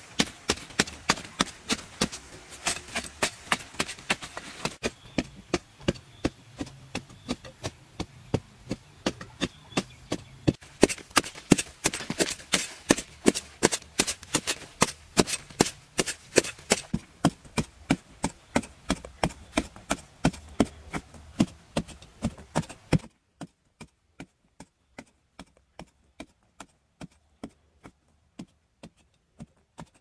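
A hoe blade striking and chopping into hard, dry soil again and again, in a steady rhythm of about two to three strokes a second. In the last several seconds the strokes come more slowly.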